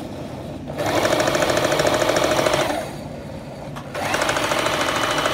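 Electric domestic sewing machine run on its foot pedal with no fabric under the foot: the motor and needle stitch rapidly in two runs. Each run speeds up and slows down; the first lasts about two seconds, and the second starts about a second after it and runs to the end.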